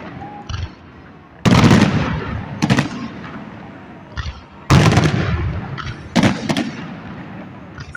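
Fireworks shells exploding in the sky: two big bursts about three seconds apart, each fading slowly away, with a few sharper bangs in between.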